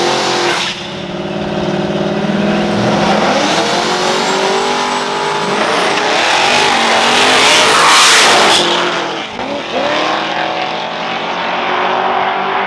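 A Chevrolet Camaro and an older compact pickup racing off the line side by side, their engines revving with pitch climbing several times through the gears. A loud rush of engine and tire noise peaks about eight seconds in, with some tire squeal.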